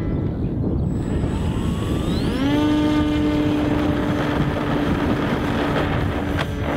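Electric motor and propeller of an RC model plane spinning up with a rising whine, then running at a steady pitch for the take-off run. Wind rumbles on the microphone throughout.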